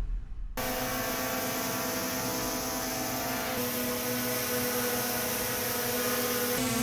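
DJI Mini 3 Pro drone hovering on aftermarket AliExpress propellers, whose tips are painted hard plastic instead of the genuine props' rubber: a steady, sharp propeller hum with several pitched tones, which sets in about half a second in after the tail of a whoosh and shifts slightly in pitch midway.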